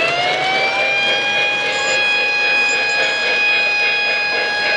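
Electronic sound effect from a Lionel O-gauge train layout as a steam locomotive passes the Billups Crossing accessory: one long siren-like warning tone that glides up at the start, then holds at a steady pitch.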